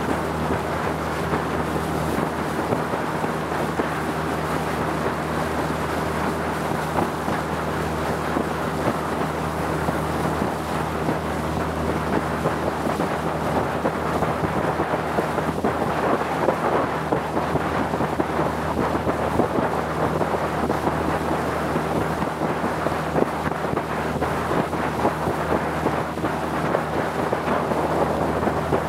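Motorboat engine running at a steady cruising speed, a constant drone, mixed with a rushing hiss of water and wind.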